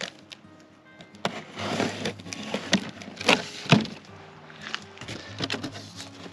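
Cardboard box and packing being opened by hand: an irregular run of knocks, scrapes and rustles, loudest in the middle, over faint background music.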